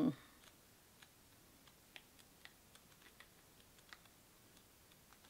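A paperback manga being leafed through: faint, irregular light clicks and ticks of the pages, about two or three a second.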